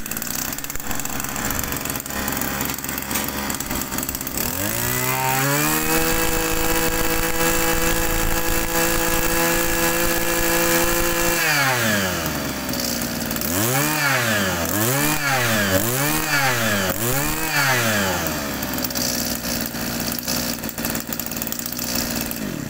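Two-stroke brush cutter engine running: throttled up about four seconds in and held at a steady high rev for roughly seven seconds, then dropped back, revved in four quick blips and settled to idle.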